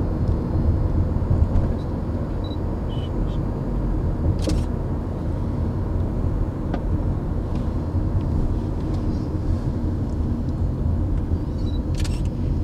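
Steady car road and engine rumble heard from inside the cabin while driving, with two brief clicks, one about four seconds in and one near the end.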